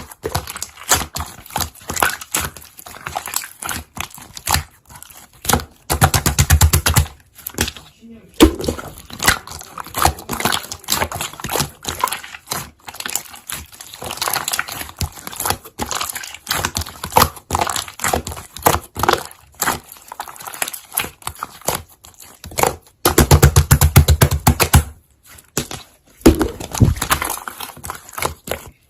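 Slime being squeezed and pressed by hand, making a dense run of small crackling pops and clicks. It is loudest in two bursts, about six seconds in and again about twenty-three seconds in.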